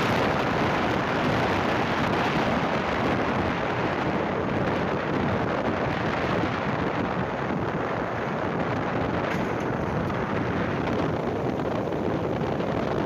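Heavy rain and strong wind in a storm: a steady, dense rush of noise with wind buffeting the microphone, easing slightly toward the end.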